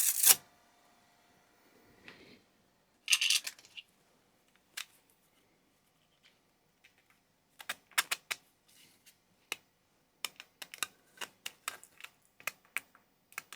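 Small, sharp plastic clicks and taps from 3D-printed parts being handled and fitted together, sparse at first and then a quick irregular run of clicks in the second half, with a short rustle a few seconds in.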